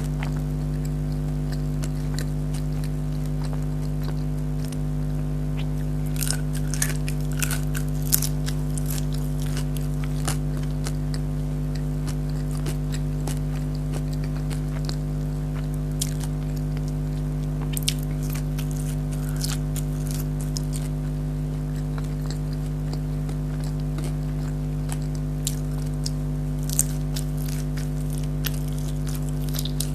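Close-miked eating sounds: biting, chewing and crisp crunching of fried food, coming as scattered crackles with quieter stretches between them. A steady low hum runs underneath throughout.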